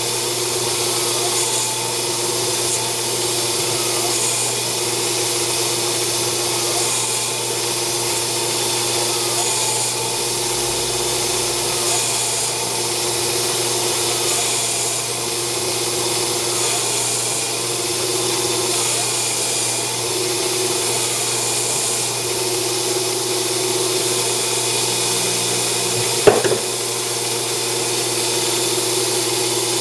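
Grizzly G0602 lathe, CNC-converted, running and cutting 2.25-inch aluminum round stock with a turning tool: a steady machine hum with a pattern that repeats about every second and a half. One sharp knock stands out near the end.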